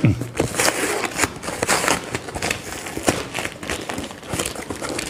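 Clear plastic bag wrapping crinkling and crackling as it is pulled and torn off a cardboard box, in a rapid, irregular run of sharp crackles.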